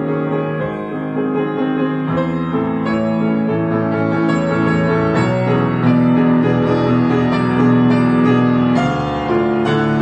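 Grand piano played solo: sustained chords over a low bass line, changing every second or two.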